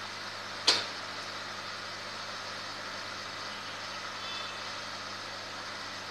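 Steady hum and hiss of running equipment at an indoor fish tank, with one sharp knock just under a second in.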